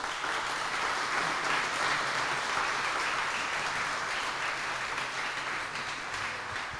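Audience applauding, building over the first second, holding steady, then tapering off near the end.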